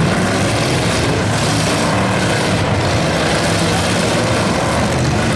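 Engines of a pack of dirt-track stock cars racing together, loud and steady, many engines blended into one continuous noise with no single car standing out.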